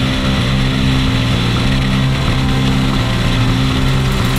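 Music with held notes, laid over a Suzuki GSX-R1000 inline-four engine running at track speed, steady in pitch.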